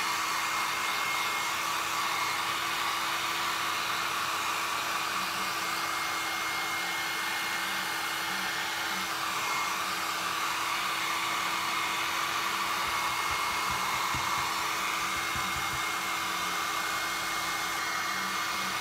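Handheld electric hair dryer running steadily on a setting, with a rush of air and a thin high whine. It is drying a coat of glue brushed over a paper napkin laid on cardstock.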